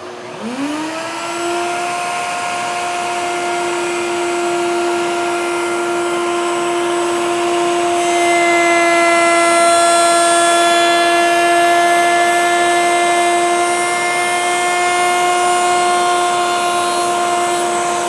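Table-mounted router with a rail-and-stile bit spinning up, its whine rising in pitch about half a second in, then running steadily at full speed. From about eight seconds in the tone grows fuller and a little louder as the bit cuts a test profile in a pine piece, and the sound cuts off suddenly at the end.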